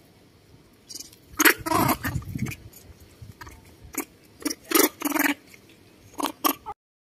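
Two baby macaques squealing in a string of short, shrill calls as they tussle with each other.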